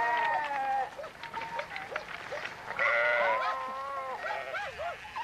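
A flock of sheep bleating, many calls overlapping: a long loud bleat at the start and another about three seconds in, among many shorter wavering ones.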